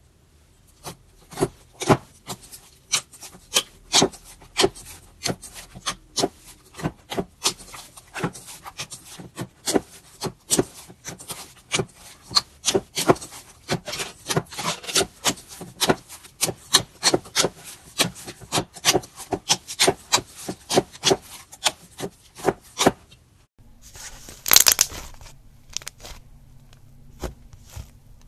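Slime being squeezed and worked by hand, giving a quick run of sharp popping clicks, about three or four a second. Just before 24 s it changes to a short, louder crackling burst, then quieter crackle.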